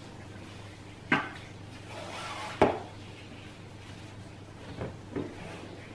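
A gift box being handled while its ribbon is untied: ribbon rustling and three sharp knocks, about a second in, the loudest about two and a half seconds in, and a smaller one near the end.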